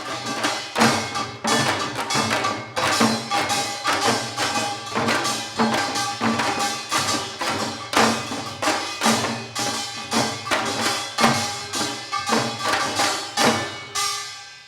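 Janggu, the Korean hourglass drum, played in seoljanggo style: a fast, dense run of sharp strokes with irregular louder accents. It drops away near the end.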